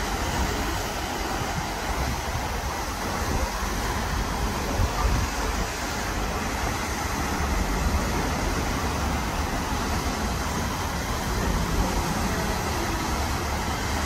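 Steady rushing noise of a tall fountain jet falling into a pond, with an uneven low rumble underneath.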